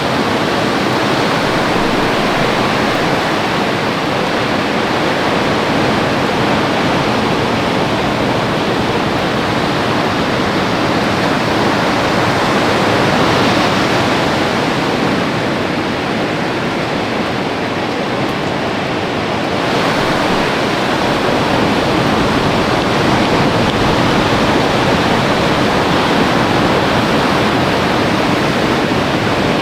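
Ocean surf breaking on a beach: a steady, unbroken wash of noise with no single wave standing out.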